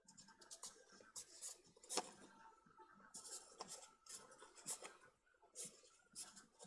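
Faint clicks and light scraping of small zoom-lens parts being handled and fitted together, with a sharper click about two seconds in.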